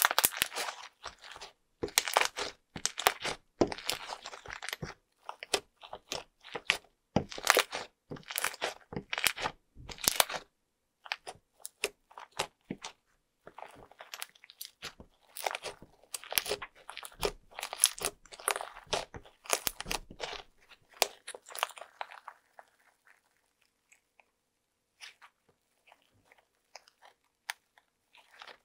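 Fluffy slime with small beads mixed in being squeezed, kneaded and stretched by hand: dense runs of sticky crackles, pops and crunches, thinning out to a few faint clicks over the last several seconds.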